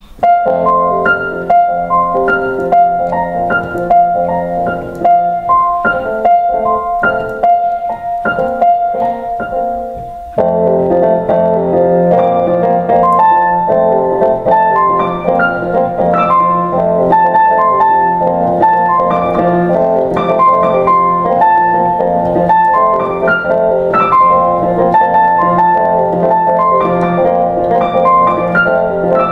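Background piano music with a steady pulse of notes; about ten seconds in it becomes fuller, with more notes played together.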